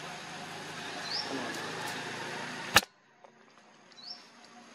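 Outdoor background hiss with a short rising bird chirp. A single sharp click comes nearly three seconds in, after which the background suddenly drops to near quiet and another brief chirp follows.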